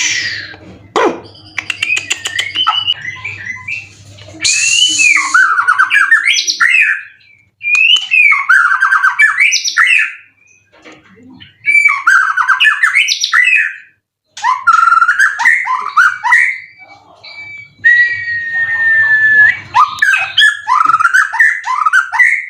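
White-rumped shama (murai batu) singing loudly: bursts of fast, varied whistled phrases full of quick pitch glides, each a couple of seconds long and separated by short pauses, with one long level whistle about three-quarters of the way through.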